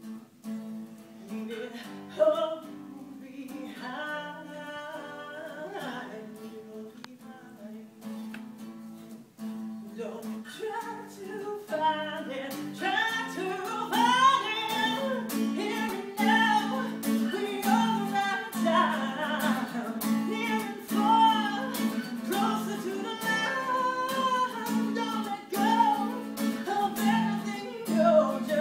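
Acoustic guitar strumming with a woman singing over it. The music grows louder and fuller about twelve seconds in.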